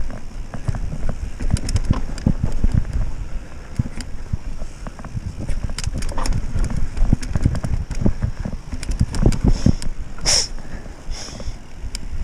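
Mountain bike clattering down a rough, rocky trail: frequent knocks and rattles from the bike over the ground, with wind rumbling on the microphone. A brief sharp hiss comes about ten seconds in.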